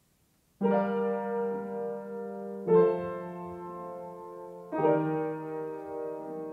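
Soft background piano music: three sustained chords about two seconds apart, the first just under a second in, each ringing on and slowly fading.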